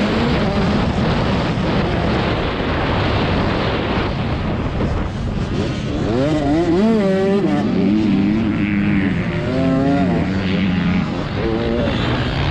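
Motocross dirt bike engine revving up and down repeatedly as the rider works the throttle and gears around the track, over a steady rush of wind noise on the helmet-mounted microphone.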